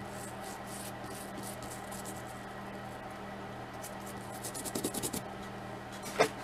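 Toothbrush bristles scrubbing a wet plastic action-figure leg to work off paint, a quick scratchy brushing in short strokes, with a sharp knock near the end.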